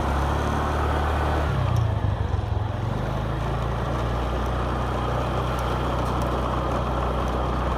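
Motorbike engine running steadily under way, with road noise; the engine note wavers briefly about two seconds in.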